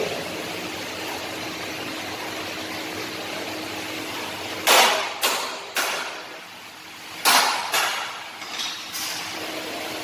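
Sharp metallic knocks on a perforated steel cable tray section being worked into a bend: about six hits, in two groups of three roughly half a second apart, over a steady background hum.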